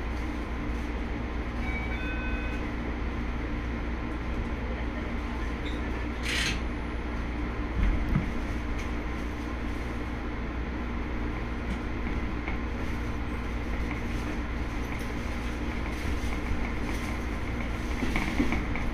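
JR 205-series electric commuter train running, heard from inside the car: a steady low rumble of wheels on rail and traction gear. There is a brief hiss about six seconds in and a low knock about two seconds later.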